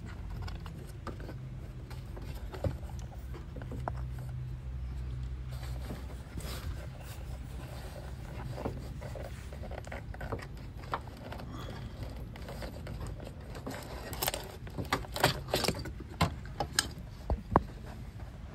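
Rubbing and scraping handling noise over a steady low rumble, then a run of sharp clicks and knocks in the last few seconds.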